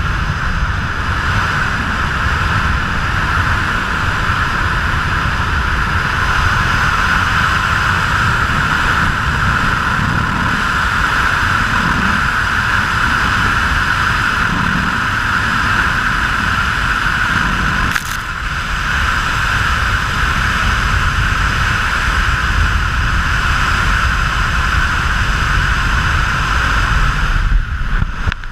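Steady, loud roar of rushing whitewater at a waterfall, with a short break about two-thirds of the way through.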